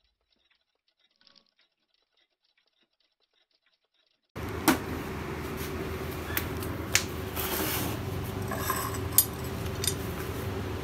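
Near silence, then about four seconds in a steady hum with room noise starts, broken by several sharp clicks and light metal clinks as small Grade 5 titanium bolts are handled in the hand.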